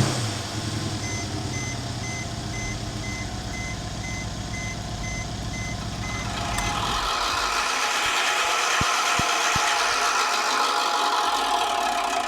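Mercedes-AMG CLS 63 engine idling while a warning chime beeps steadily. About seven seconds in, the low engine drone stops and a steady whirring, rushing noise carries on, with three light clicks. The loud noise comes from a bent piece that the fan was scraping against.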